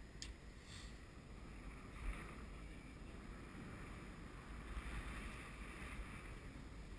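Wind rumbling on the microphone over water lapping against a small boat's hull, with two short clicks in the first second.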